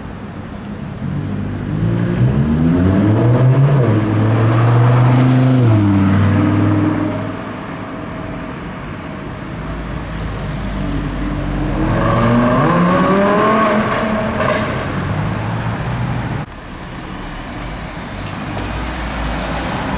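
Audi R8's V10 engine accelerating twice, each time rising in pitch and getting louder before falling away, with a low traffic rumble in between. The level drops suddenly about three-quarters of the way through.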